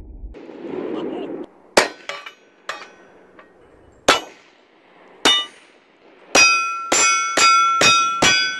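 Bullets striking hanging steel plate targets, each hit a sharp crack followed by a ringing metallic clang. There are a few spaced hits, then a quick string of about five hits, roughly two a second, near the end.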